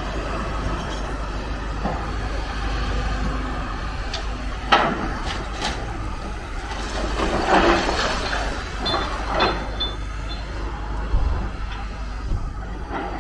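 Building demolition: rubble crashing down at intervals, with a sharp bang about five seconds in and a longer clattering crash around eight seconds, over steady wind noise on the microphone.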